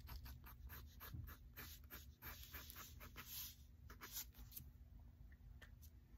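Faint scratching of a Sharpie marker on sketchbook paper, drawn in quick, short, choppy strokes to put in fur, thinning out about four and a half seconds in as the pen lifts away.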